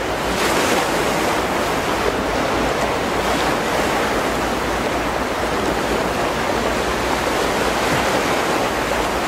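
Steady rush of wind and choppy sea water, with a low rumble of wind on the microphone.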